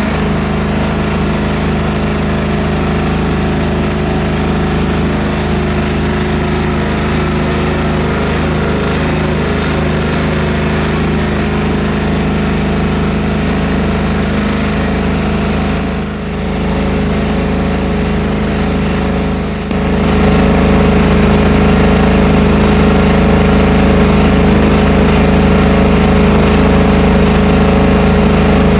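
A 10 kW diesel backup generator's engine running steadily during a test run. It dips briefly about 16 seconds in, then runs louder from about 20 seconds on.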